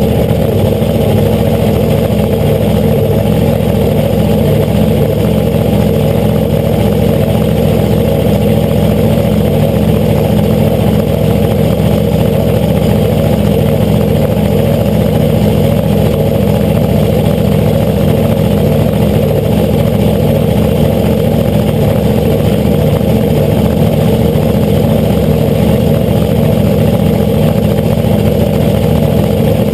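Supercharged V8 of a nostalgia funny car idling steadily and loudly, heard close up from the cockpit.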